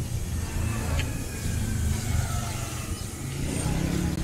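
City street ambience: a steady low rumble of road traffic going by.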